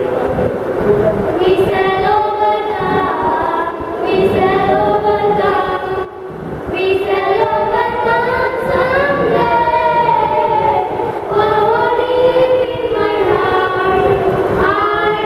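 A group of boys singing a song together into a handheld microphone, amplified, with long held and gliding notes. There is a short break about six seconds in.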